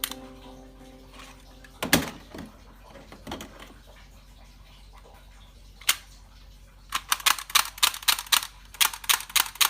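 Plastic toy gun clicking: a knock about two seconds in, a single click near six seconds, then a quick run of sharp clicks, about five a second, from about seven seconds on.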